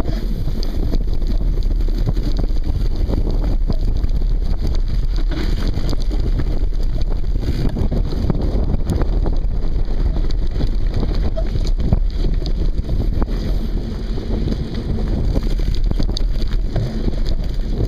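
Wind buffeting the microphone of a handlebar-mounted camera on a mountain bike riding a dirt trail, with a steady low rumble and many small knocks and rattles from the bike over the bumpy ground.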